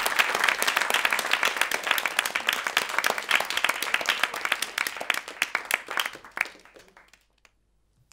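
Audience applauding, the dense clapping thinning to a few scattered claps and dying away about seven seconds in.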